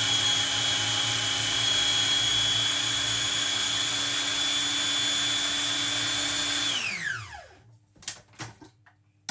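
Electric food processor motor running steadily with a high whine as it blends butter, sugar and vanilla, then switched off about seven seconds in, its pitch falling as the blade spins down. A few clicks follow near the end as the lid is handled.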